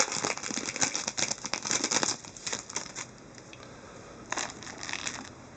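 Foil wrapper of a hockey card pack crinkling as it is torn open and handled: dense crackling for about two seconds, then a lull, then a shorter burst of crinkling near the end.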